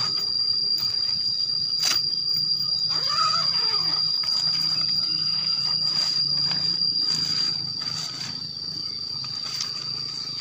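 Insects droning steadily at a high pitch in one unbroken tone, with a few sharp clicks and rustles from nylon tent fabric being handled.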